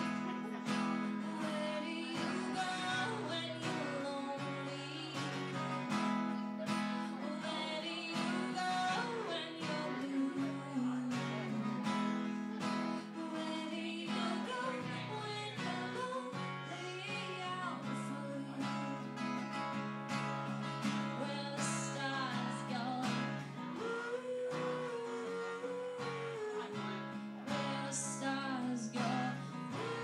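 Solo live performance: strummed acoustic guitar with a woman singing a slow ballad into a microphone.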